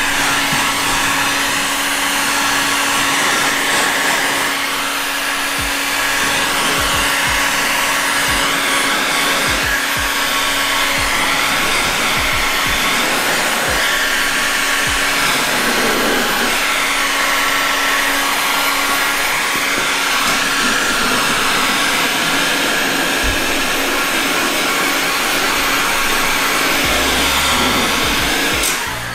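Electric heat gun blowing hot air steadily, with a steady motor hum, onto the edge of paint protection film to make the lifting film stick around a car door's edge; it cuts off near the end.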